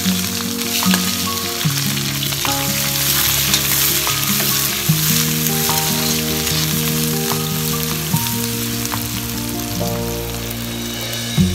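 Onions and potato wedges sizzling in hot oil in a wok, stirred now and then with a metal slotted spoon, over a steady melody of background music.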